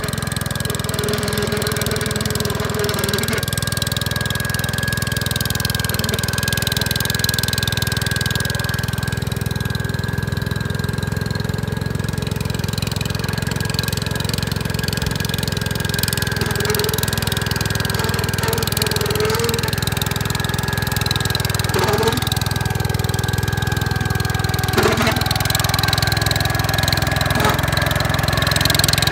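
Gravely 5665 tractor's 12 hp Kohler engine running steadily, with a steady high whine over it. Two short knocks come near the end.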